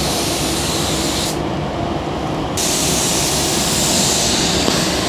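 Compressed-air paint spray gun hissing as it lays the first tack coat of car paint. The spray stops for about a second near the middle, then resumes, over a steady low rumble.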